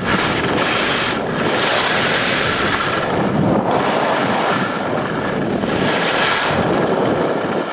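Wind rushing and buffeting over the microphone of a camera moving fast down a ski slope behind a carving snowboarder.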